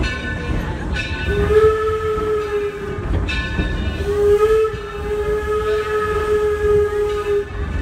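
Steam whistle of the steam locomotive Torch Lake, sounded twice at one steady pitch: a short blast, then a longer one. Under it runs the low rumble of the moving train.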